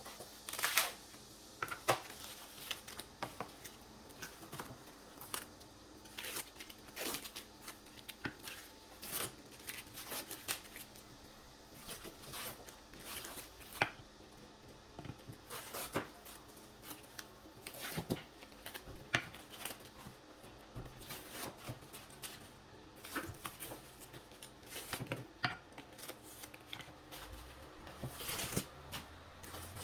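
Irregular light scrapes, rustles and taps from hands working small wooden pieces, with a faint steady hum underneath.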